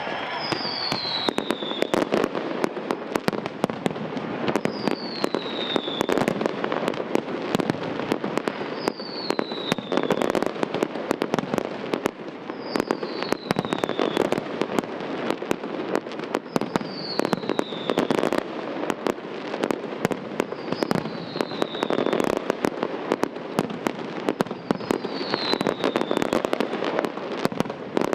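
Fireworks display: a dense run of bangs and crackles from bursting shells. A short falling whistle comes back about every four seconds.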